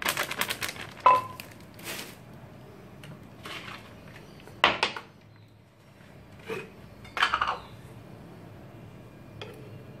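A plastic seasoning bag crinkling briefly, then scattered clinks, knocks and short scrapes of kitchen utensils and dishes being handled, with one sharp ringing clink about a second in.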